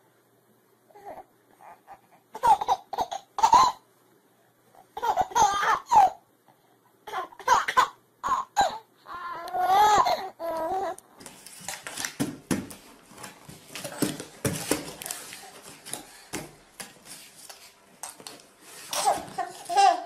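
Baby laughing in repeated bursts of giggles and belly laughs. About halfway through, this gives way to a noisier stretch of rustling and light knocks, and a last burst of baby voice comes near the end.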